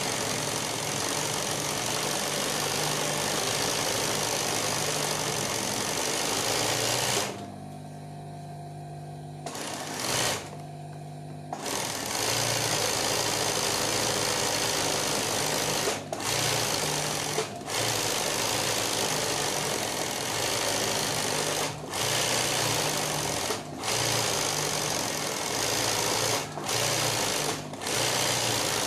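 Industrial sewing machine stitching fast in free-motion embroidery, the needle running in long runs. It stops for a couple of seconds about a quarter of the way in and again soon after, then briefly several more times, while a lower motor hum carries on through the stops.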